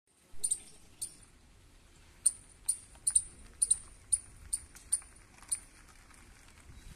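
About a dozen short, sharp, high-pitched chirps, irregularly spaced, over a faint low rumble.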